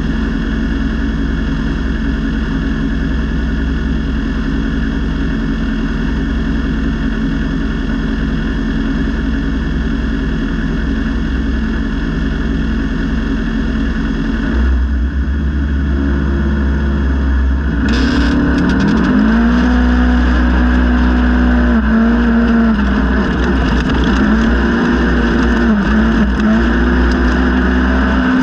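Polaris RZR XP 1000 side-by-side engine running, at first with a steady, even note. About two-thirds of the way in it gets louder and runs at high revs, the pitch dipping briefly and climbing back every couple of seconds as the throttle is eased and reopened.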